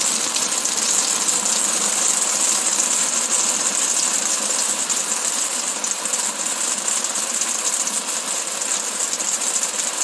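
Rain beating on an awning: a loud, steady, dense patter with a hiss.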